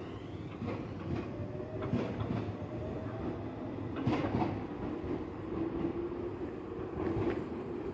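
Tobu Tojo Line electric commuter train running past: a steady rumble of wheels on rail with irregular clacks as the wheels cross rail joints, and a faint rising motor whine early on.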